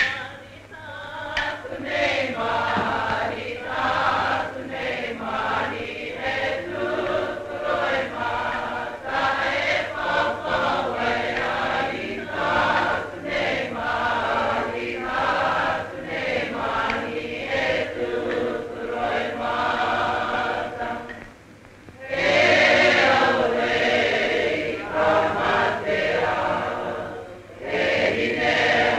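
Māori choir of voices singing together, a group song. It breaks off briefly about two-thirds of the way through and comes back louder.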